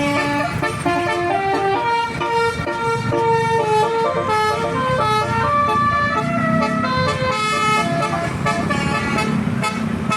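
A multi-tone telolet (basuri) bus horn playing a tune, its notes stepping from pitch to pitch several times a second, over low engine and road rumble.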